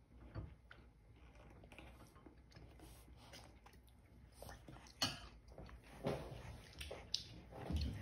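Quiet room with faint scattered clicks and taps, a sharper click about five seconds in, and louder soft knocks and rustling near the end.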